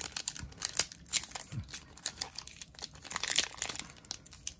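Foil wrapper of a Digimon Card Game booster pack crinkling and tearing as it is pulled open by hand, in quick irregular crackles.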